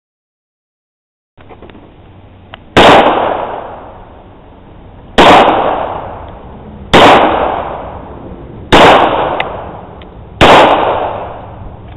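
Five single gunshots about two seconds apart, each a sharp crack followed by a long fading echo.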